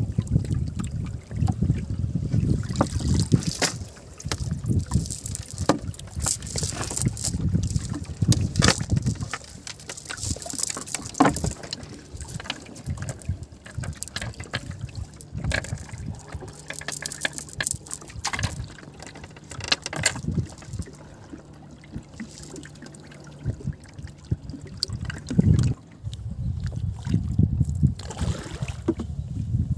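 River water splashing and dripping as a wet cast net is hauled by hand over the side of a wooden boat, with scattered knocks on the boat's planks. A faint low steady hum runs through the middle.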